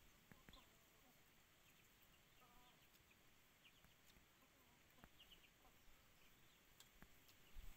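Near silence: faint rural background with a few soft clicks of a spoon against a bowl and some faint, scattered chirps.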